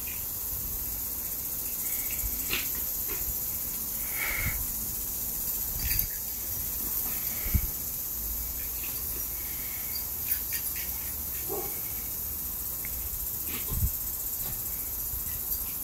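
Steady high-pitched outdoor hiss, with a few short soft knocks and several brief faint chirps.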